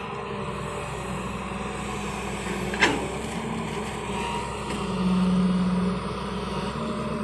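Excavator's diesel engine running steadily, with one sharp clank about three seconds in and a louder hum for about a second after the middle.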